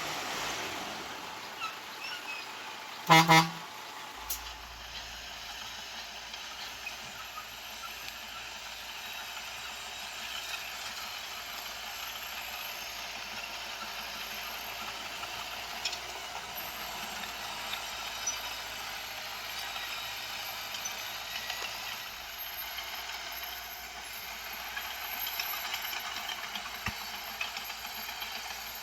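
Steady running of heavy earthmoving machinery, with a short, loud vehicle horn honk about three seconds in.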